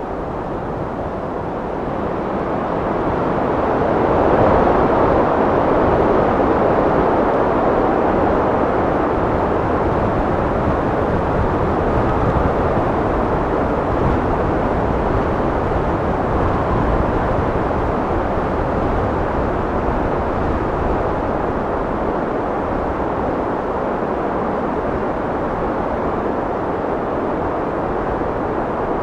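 Wind blowing, a steady rushing noise that swells into a gust a few seconds in and then holds level.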